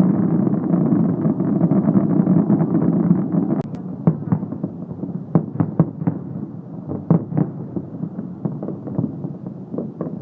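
Fireworks show: a dense, continuous rumble of overlapping bursts that drops off sharply a few seconds in, after which single bangs and crackles follow and thin out.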